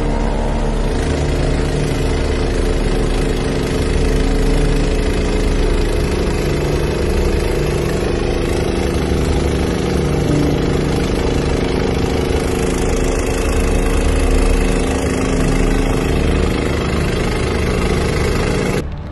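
Two-stage snowblower's petrol engine running steadily under load as it cuts through deep snow and throws it from the chute. It stops suddenly near the end.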